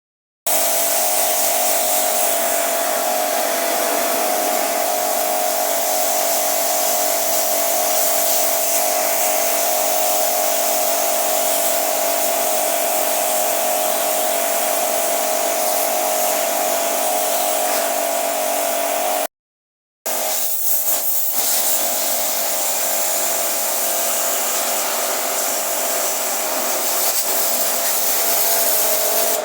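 Steady machine noise from window air-conditioner servicing: a loud, even rush of air or spray over a steady electric hum. It stops abruptly for under a second about two-thirds of the way through, then carries on.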